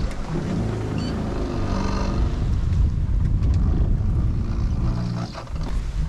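Wind buffeting the microphone and water rushing past the hull of a 1978 Tartan 34C sailboat running under a double-reefed mainsail in rolling seas, with a low steady hum underneath.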